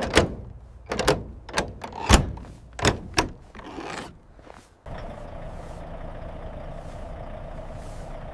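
A string of sharp knocks and clanks around a truck. Just before five seconds in, a steady truck engine drone cuts in abruptly.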